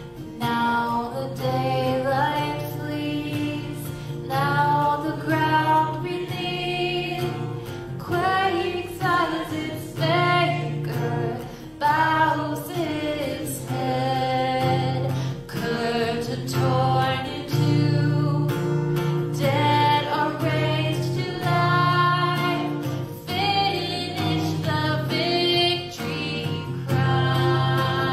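Music: a woman singing a worship song over guitar accompaniment.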